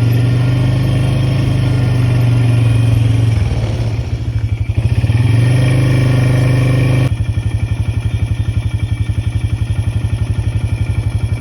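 A small engine running steadily, easing off briefly about four seconds in. At about seven seconds it changes abruptly to a lower, evenly pulsing beat.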